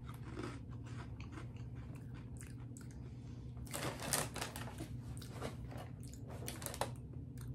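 A person chewing crunchy cookies-and-cream cereal, a string of faint crisp crunches that come thicker about four seconds in and again toward the end.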